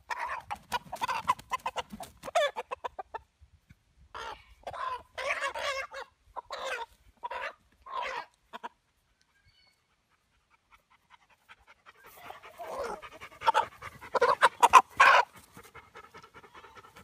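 Rooster squawking in harsh bursts as it is grabbed and held down by hand, the alarm calls of a restrained bird. The calls come in three spells, with a pause of a few seconds before the last and loudest.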